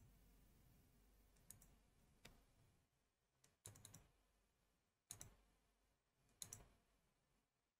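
Faint computer mouse clicks against near silence: a few single clicks and some quick pairs and triples as files and folders are clicked through in a file dialog.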